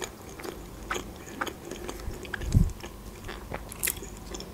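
Close-miked chewing of fried fast food: soft crunches and wet mouth clicks scattered irregularly, with a single low thump about two and a half seconds in.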